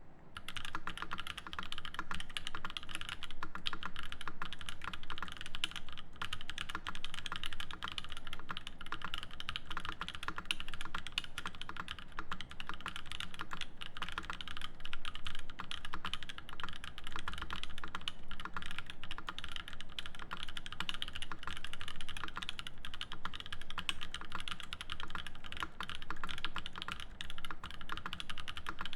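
Continuous fast typing on a Matrix Noah V1 mechanical keyboard with lubed Gazzew Boba U4T switches, an aluminium plate and GMK keycaps: a dense, steady stream of key clacks.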